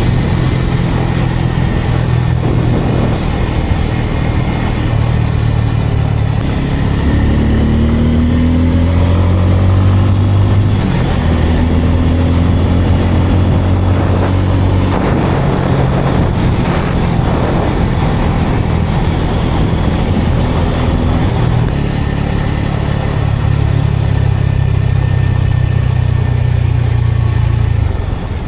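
Bajaj Pulsar N250's single-cylinder engine running while the motorcycle is ridden, its note rising several times and stepping down in between as the rider accelerates.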